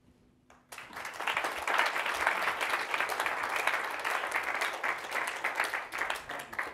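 Audience applauding: many hands clapping together, starting suddenly just under a second in and thinning out near the end.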